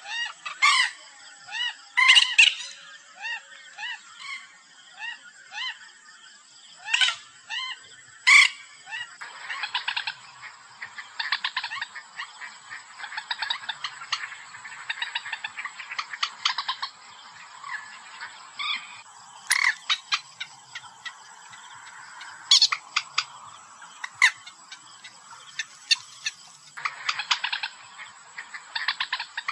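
Common moorhen calling, played as a hunting lure: a run of short repeated croaking calls, then long stretches of fast chattering, broken by several loud sharp notes.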